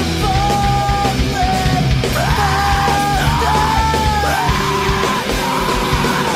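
Loud punk-style rock song: a full band plays under a yelled vocal line of long held notes that bend up and down.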